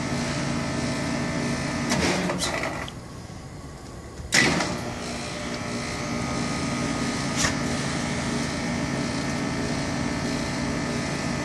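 Heat pump outdoor unit running with a steady hum of several tones. About three seconds in the hum drops away, and just over a second later it returns abruptly with a sharp click.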